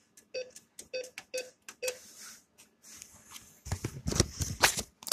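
Cash machine PIN-pad keys pressed four times, about half a second apart, each press a short click with a faint beep. It is followed near the end by a louder stretch of rustling and knocking.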